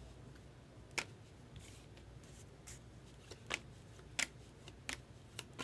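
Baseball cards being flipped through by hand, each card slid off the stack with a short, crisp snap, about six at uneven intervals.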